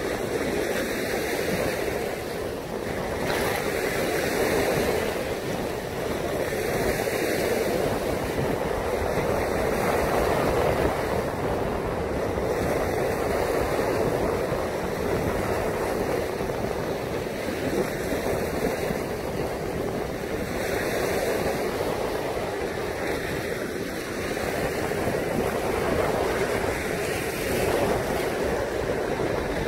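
Lake surf washing on the shore, a steady rushing noise that rises and falls slightly, with wind buffeting the microphone.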